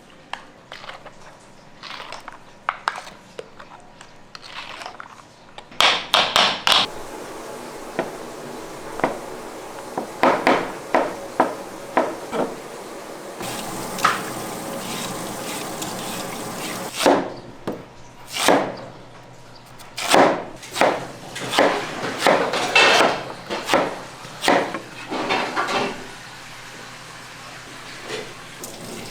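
Kitchen clatter: utensils and containers knocking and scraping during food preparation, with a few seconds of steady rushing noise in the middle.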